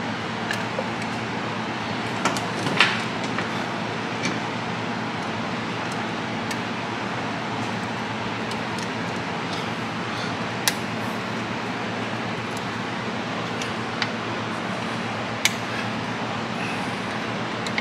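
Sharp metallic clicks and clinks, about half a dozen, scattered over steady background noise, as the brake shoes and springs of a rear drum brake are worked into place by hand.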